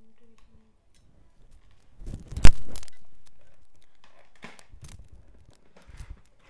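Handling noise: rustling and crinkling, with one sharp loud knock about two and a half seconds in that dies away over a second or so, then a few lighter clicks.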